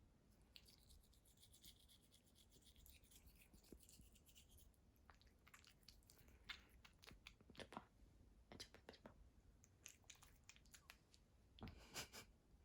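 Faint toothbrush scrubbing a cat's teeth: quick rubbing, scratching strokes in clusters, louder in the second half.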